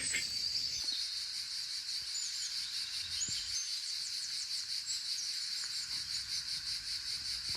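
A steady chorus of crickets chirping, with a few short bird chirps over it.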